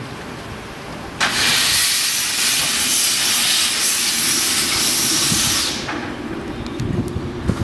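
Robert Stephenson & Hawthorns saddle tank steam locomotive blowing steam from its open cylinder drain cocks, clearing condensed water from the cylinders. A loud hiss starts suddenly about a second in and drops away after about four and a half seconds, followed by a few faint clicks.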